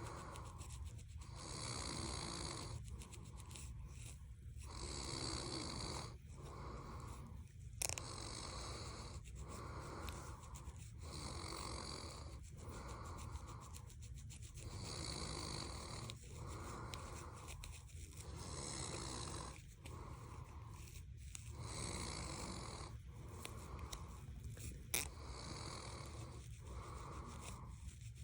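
A person snoring in a slow, regular rhythm, mixed with repeated soft scratching of fingernails on a scalp. There are two sharp clicks, one about eight seconds in and one near the end.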